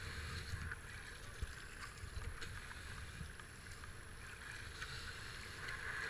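Fast whitewater rushing past a kayak in a flooded river rapid, a steady hiss with a few short splashes from the paddle blades, over a low, uneven rumble.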